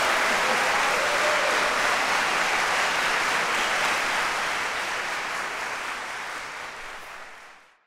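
Concert hall audience applauding steadily, the applause fading out near the end.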